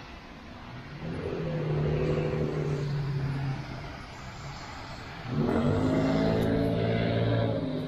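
Motor vehicle engines going by twice, each a steady droning engine note, the second rising in pitch as it comes up.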